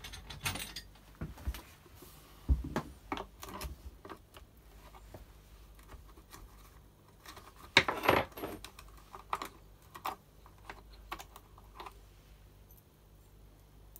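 Irregular clicks, taps and rattles of small parts and hand tools being handled while a chainsaw's switch and casing are taken apart, with the loudest clatter about eight seconds in.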